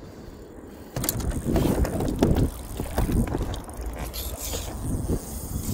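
Wind rumbling on the microphone, with irregular knocks and handling noise aboard a fishing boat. It starts about a second in, after a quieter moment.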